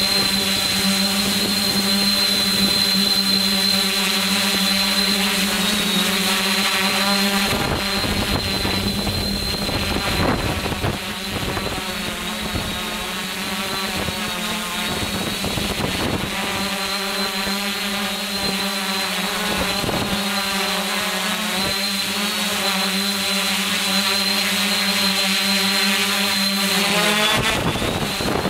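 Electric motors and propellers of a multirotor camera drone running steadily in flight, a buzzing hum with a faint high whine above it; the pitch swells and dips several times as the motors change speed.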